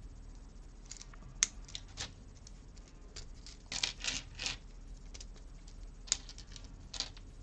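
Small plastic Lego pieces clicking as Technic pins are pressed into a Technic bar and parts are handled: scattered light clicks, a sharper one about a second and a half in and a cluster of them around the middle.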